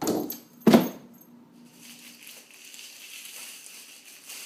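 Two short clattering knocks of something hard, about a second apart, the second louder, then a faint steady hiss.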